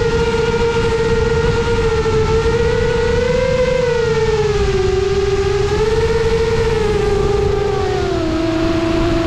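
A 7-inch FPV quadcopter's brushless motors and propellers whining in flight, with the pitch wavering up and down with the throttle and dipping lowest near the end. Under it runs a steady low rushing noise.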